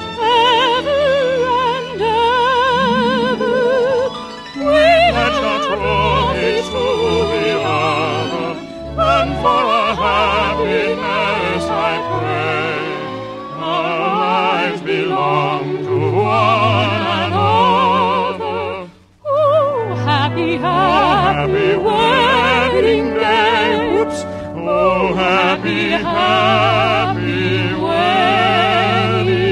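Operatic duet: a baritone and a soprano singing sustained notes with wide vibrato over an orchestral accompaniment, with a short break in the sound about two-thirds of the way through.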